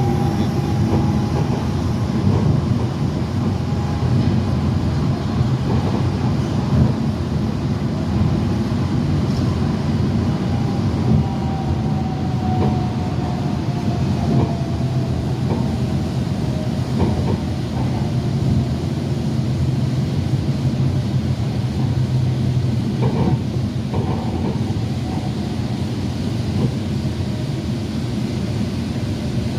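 Bangkok MRT Yellow Line monorail running: a steady low rumble, with a motor whine that slowly falls in pitch over the first half.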